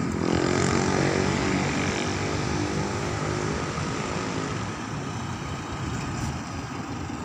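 Road traffic on a city street: a passing vehicle's engine drone that slowly fades away over a steady wash of traffic noise.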